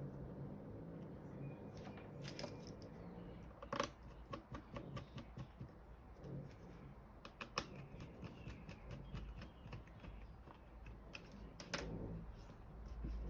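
Irregular light clicks, taps and rustles of small tools and a plastic scan-tool housing being handled during a battery replacement, over a faint low hum.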